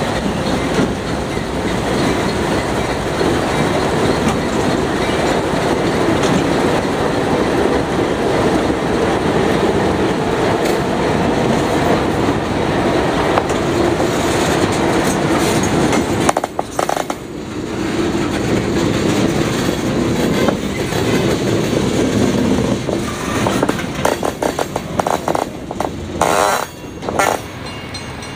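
Diesel locomotives running and rolling slowly past close by, with wheels clacking over the rail joints. About halfway through the sound drops suddenly and turns uneven, with short surges near the end.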